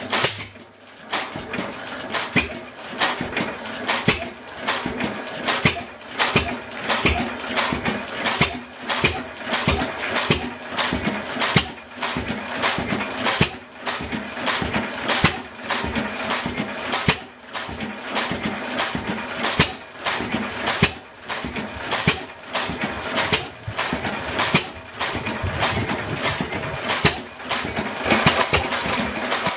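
7 hp Waterloo Boy Type K hit-and-miss stationary engine running. It gives a steady run of sharp beats, with louder firing strokes falling irregularly among quieter ones.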